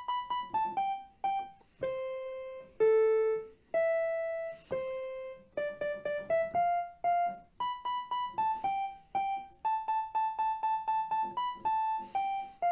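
Portable electronic keyboard played one note at a time in a piano voice: a simple melody of short struck notes, with a few longer held notes a couple of seconds in and a quick run of the same note repeated about five times a second near the end.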